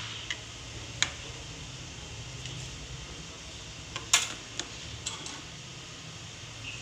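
Steel ladle clinking and scraping against a kadai while stirring thick paneer gravy: a handful of sharp metal knocks, the loudest about four seconds in. A steady low hum runs underneath.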